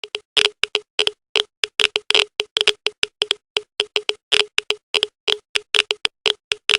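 Geiger counter clicking fast and irregularly, about five clicks a second with some bunched together, the sign of a high radiation level. The clicking starts abruptly out of silence.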